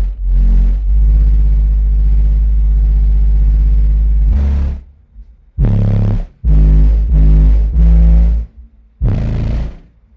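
Car audio subwoofers playing a bass line loudly: a long held low bass note, then a string of short, punchy bass hits from about five and a half seconds in.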